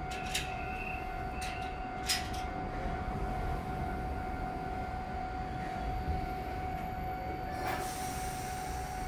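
Iyo Railway 3000 series electric train standing at a station platform, giving a steady high hum. A few short clicks come in the first two seconds, and a brief rush of noise comes near the end.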